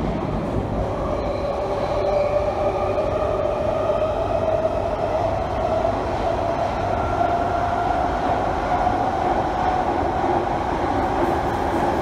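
Jubilee line 1996 Stock tube train heard from inside the carriage while running in a tunnel: a steady rumble of wheels and running gear. Over it a motor whine slowly rises in pitch as the train gathers speed.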